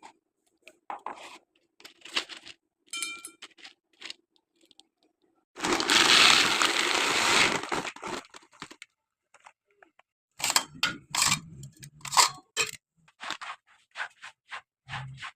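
Cat food being prepared by hand: scattered crinkling and clicking of packaging, a loud rushing noise of about two seconds in the middle, then a quick run of sharp crinkles and clicks near the end.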